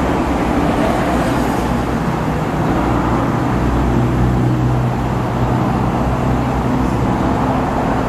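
Steady mechanical drone of a running motor under broad rumbling noise. Its low hum grows stronger in the middle.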